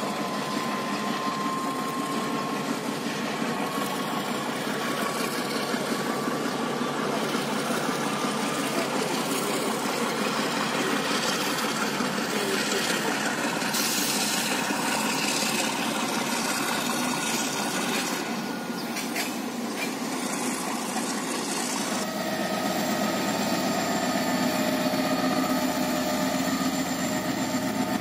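Diesel locomotive engine running, a steady mechanical drone. About 22 seconds in it changes abruptly to a different diesel locomotive engine running steadily with a low hum.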